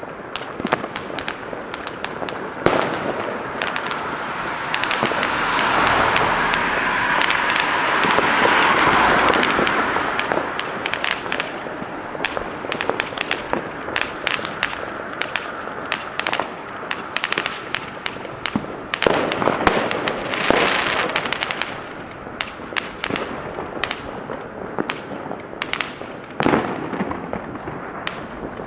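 Fireworks going off: many firecrackers and rockets bang and crackle in quick, irregular succession, with a few louder single bangs. A long hiss swells and fades in the first ten seconds, and a shorter one comes about twenty seconds in.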